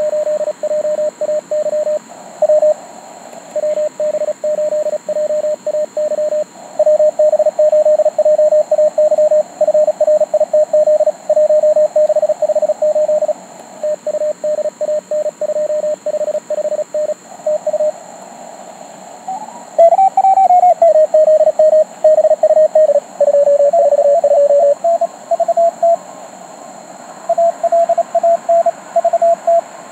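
Morse code (CW) signals heard on a ham radio receiver: keyed tones near one pitch, with a few other stations at slightly different pitches and steady hiss. A tone slides up and back down in pitch about twenty seconds in.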